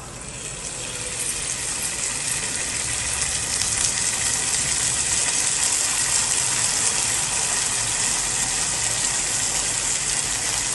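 Chopped onion and capsicum sizzling in hot oil in a frying pan as red chilli sauce goes in. The sizzle grows louder over the first few seconds, then holds as a steady hiss.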